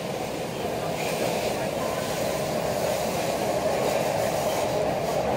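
MTR Kwun Tong line C-train, a CRRC Changchun-built metro train, running and gathering speed, heard from inside the car: a steady rumble of wheels and running gear that grows slightly louder as the train leaves the platform and enters the tunnel.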